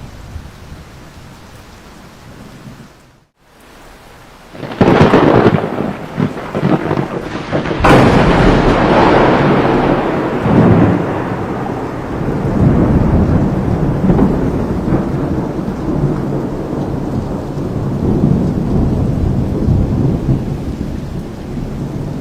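Thunder during a monsoon storm: a sudden loud clap about five seconds in and a sharper crack about three seconds later, then a long rolling rumble that slowly fades, over steady rain.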